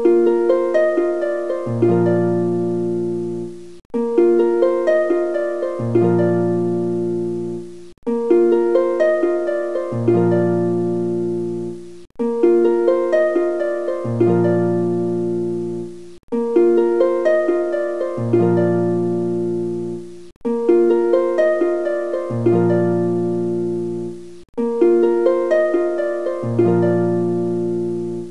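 Background music of gently plucked strings. A short phrase loops about every four seconds, with a brief dip at each repeat and low bass notes coming in partway through each loop.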